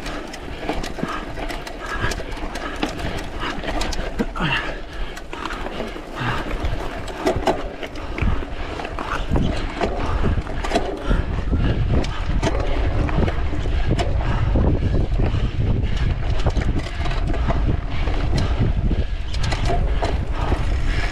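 Mountain bike rattling and clattering over a rough, sandy forest trail, with many small knocks and clicks, and wind buffeting the microphone that grows much louder about eight seconds in.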